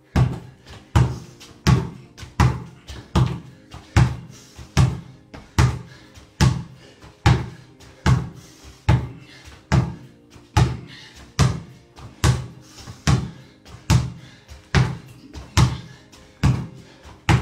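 A basketball bounced on a tiled floor at a steady pace, a little more than once a second, each bounce coming with a leg switch in alternating lunges. Softer knocks fall between the bounces, and background music plays underneath.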